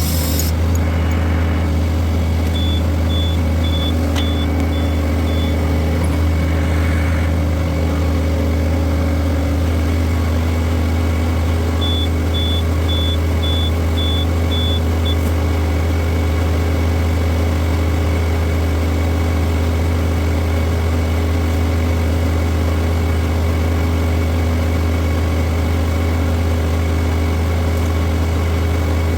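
Skid steer engine running steadily. Twice, a short run of high beeps sounds, about two a second.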